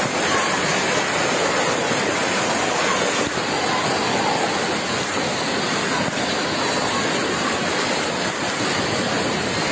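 Fast-flowing floodwater rushing steadily, a dense continuous noise of churning water.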